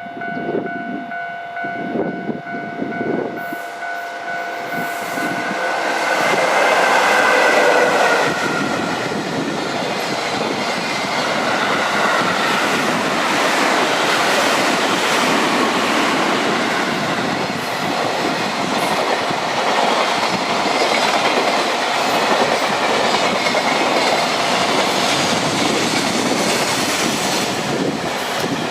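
Japanese level crossing alarm ringing, drowned out when a freight train hauled by an EF66 electric locomotive reaches the crossing, loudest about seven seconds in. The train then passes at speed in a long, steady run of wheel clatter over the rails, and the crossing alarm is heard again near the end.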